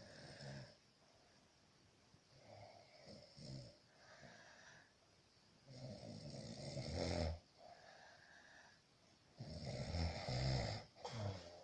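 A sleeping man snoring. The snoring breaths come every few seconds, the two longest and loudest in the second half, with softer breaths between.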